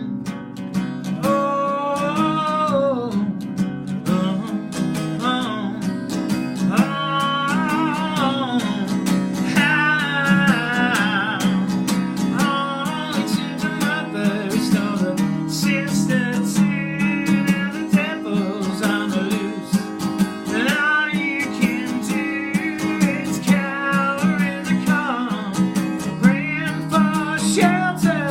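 Instrumental break in a folk song: steadily strummed acoustic guitar with a wavering lead melody line over it.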